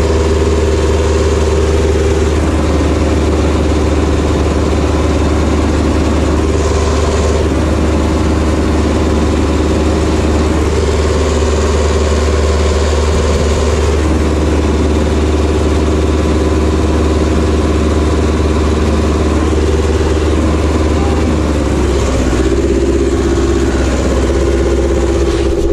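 Ursus tractor's diesel engine running steadily, heard from inside its cab, with a small shift in engine pitch near the end.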